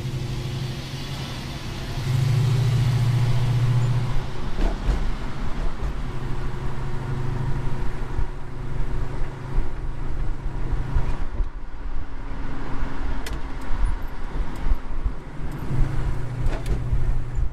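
Car engine and tyre noise heard from inside the cabin while driving through town traffic, a low drone that swells as the car pulls away about two seconds in and again near the end.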